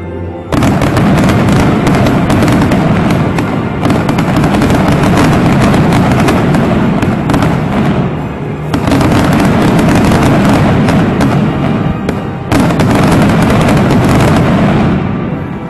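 Aerial fireworks going off in a loud, dense barrage of bangs and crackles, with brief lulls about four, eight and twelve seconds in, and music playing underneath; the barrage dies down near the end.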